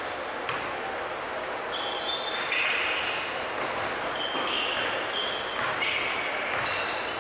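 Basketball game in a large gym: sneakers squeaking on the hardwood floor, repeated short high squeaks, with a ball bouncing and players' voices echoing in the hall.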